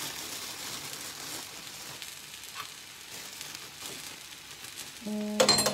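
Rice, onions and nuts frying in oil in a pan, a steady sizzle. About five seconds in, a short crackle and a voice start.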